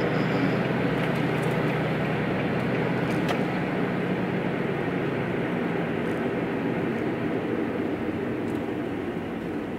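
Steady road and engine noise inside a moving car's cabin: a low hum with tyre hiss, easing slightly near the end.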